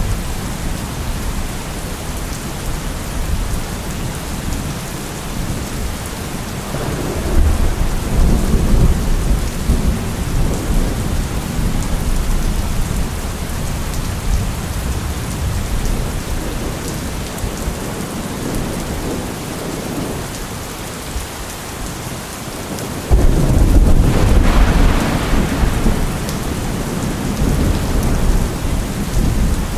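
Steady heavy rain hissing, with thunder rumbling twice: a rumble about a quarter of the way in, and a louder peal that breaks in suddenly about three quarters of the way in and slowly dies away.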